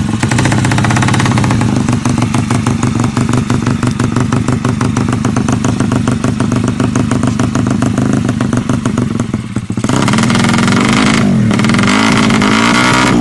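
Drag-racing motorcycle engine running loud, held at steady high revs for about ten seconds, then blipped up and down in repeated swells of pitch.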